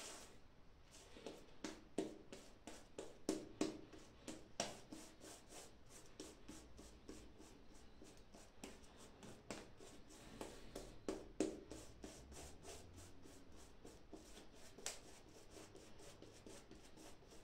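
A synthetic shaving brush working shaving-soap lather over a bearded face, making faint, irregular brushing strokes as the lather is built up on the skin.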